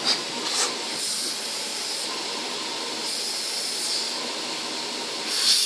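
Vacuum cleaner running with a steady whooshing hiss, the high part of the hiss swelling louder in a few stretches.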